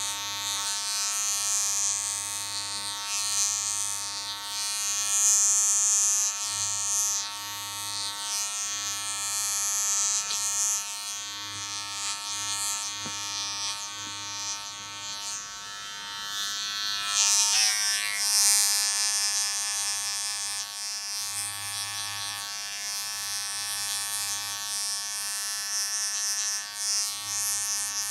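Electric hair clippers buzzing steadily as they cut hair, with repeated bursts of high hiss as the blades pass through the hair. The buzz wavers briefly in pitch about two-thirds of the way through.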